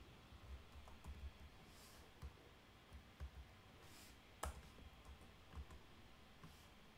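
Faint, scattered keystrokes on a computer keyboard while a terminal command is edited and entered, with one louder key press about four and a half seconds in.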